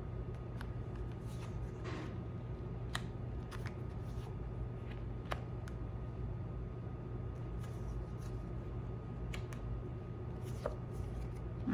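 Oracle cards being handled on a table: scattered, irregular faint taps and slides of card stock over a steady low hum.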